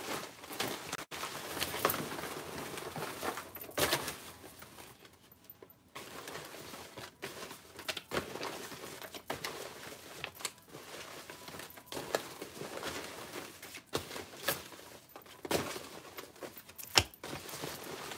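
Folded paper slips rustling and crinkling as hands rummage through a fabric bin full of them, in irregular bursts with a short lull about five seconds in.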